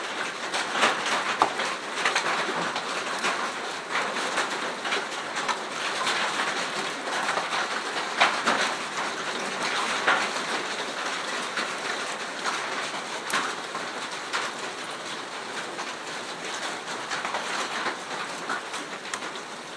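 Hailstorm: hail and rain falling hard, a dense hiss dotted with many sharp taps and clatters of hailstones striking, easing somewhat in the second half.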